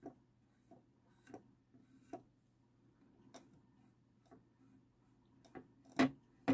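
Faint, irregular small taps and clicks as a fine paintbrush and a painted heart-shaped box are handled during close detail painting, with a sharper tap near the end.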